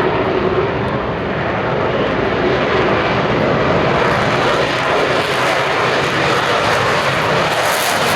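Lockheed Martin F-35 Lightning II's single Pratt & Whitney F135 jet engine on takeoff: a loud, steady rush of jet noise that turns hissier and brighter about four seconds in.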